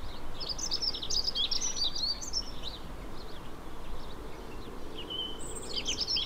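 Small birds chirping and twittering in the background, largely sparrows, in two bouts with the second starting near the end. A low steady hum of distant road traffic runs underneath.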